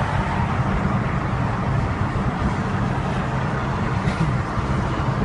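Steady car engine and road rumble heard from inside the cabin of a car moving in traffic.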